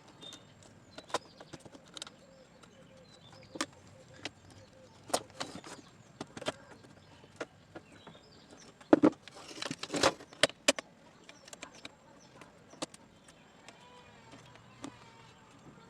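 Irregular small clicks and knocks of a plastic mosquito-swatter bat housing and its battery being handled and fitted together, with a brief flurry of louder knocks and rustling about nine to ten seconds in.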